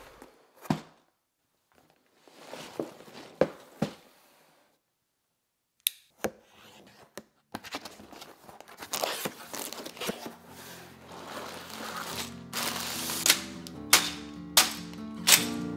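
A LEGO set's cardboard box being torn open along its perforated tabs and handled: a few sharp clicks and stretches of tearing, rustling cardboard. Background music with a steady beat comes in about ten seconds in.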